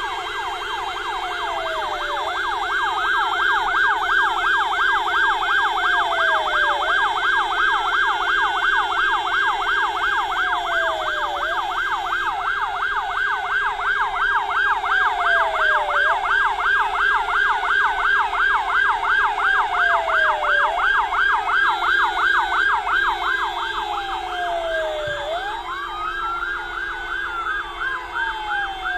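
Vehicle sirens sounding together as the signal for a minute of silence. One goes in a slow rising-and-falling wail of about four seconds a cycle, another in a fast yelp of about three sweeps a second, over a steady lower tone.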